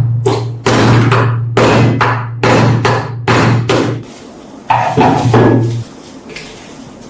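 Repeated hammer blows on metal, about two a second, with a low hum under them. After a brief pause about four seconds in comes a second short burst of three blows.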